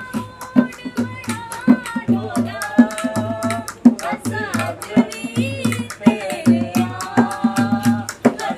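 Folk music: a voice singing a gliding melody over a hand drum that keeps a steady beat, with sharp ticks throughout.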